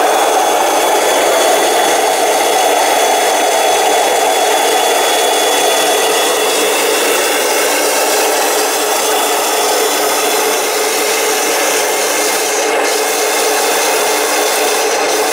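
Wood chips sliding and scraping out of a model tipper trailer's raised aluminium body into a pile, a steady scraping hiss.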